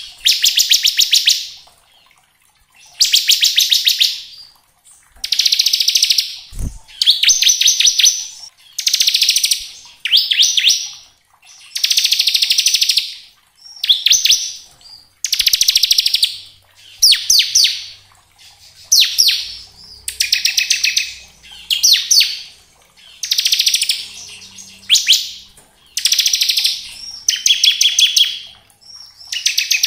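Bar-winged prinia (ciblek) singing its rapid, rattling 'ngebren' trill: high, fast-repeated notes in phrases of about a second each, one after another with short pauses.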